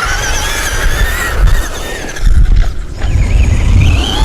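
Electric motors and drivetrains of Traxxas RC cars whining, the pitch rising and falling as the throttle is worked, over low wind rumble on the microphone.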